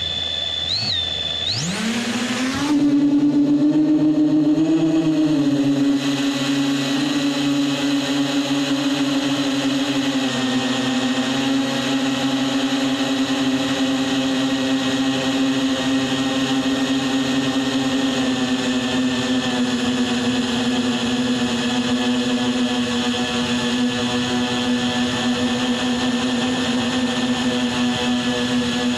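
Quadcopter drone's motors and propellers spinning up with a rising whine about two seconds in, then settling into a steady buzzing hum in flight, its pitch dipping slightly about ten seconds in. A high steady tone sounds briefly at the very start.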